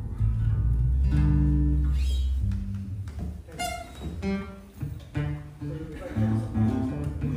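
Acoustic guitar music, chords strummed and picked, with a brief sharp scrape about three and a half seconds in.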